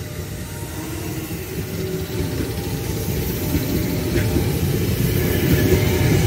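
KAI Commuter electric multiple-unit train running past on the far track: a steady low rumble of wheels on rail with a faint motor hum, growing a little louder near the end.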